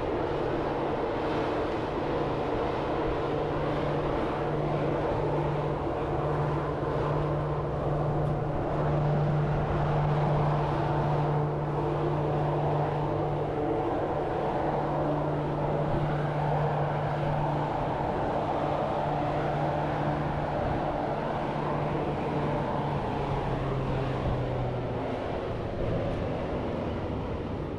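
A steady engine hum over continuous outdoor background noise, its pitch dropping slightly near the end.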